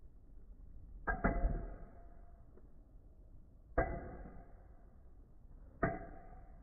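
Two Beyblade spinning tops clashing: three sharp clacks, a quick double hit about a second in, then single hits near four and near six seconds, each with a short ringing tail.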